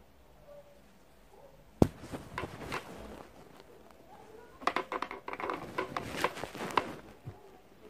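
Handling noise close to the microphone: a sharp click about two seconds in, then clatter and rustle, and a busier run of clicks and knocks in the second half as things are moved about.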